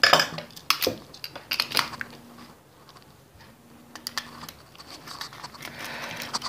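Small clicks and rattles of a plastic three-pin mains plug being handled and opened with a screwdriver: a few sharp clicks in the first couple of seconds, then quieter handling with scattered clicks.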